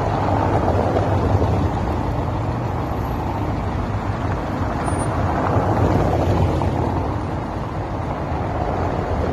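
Steady road noise of traffic on a cobblestone street: an even, low rush of car tyres and engines that holds level throughout.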